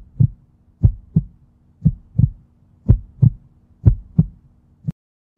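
Heartbeat sound effect: five lub-dub double thumps about a second apart, then a single beat, cutting off suddenly near the end.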